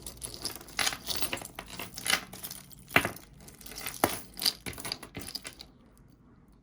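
Loose costume jewelry clinking and rattling as pieces are picked through and dropped into sorting piles, with two sharper clacks about three and four seconds in.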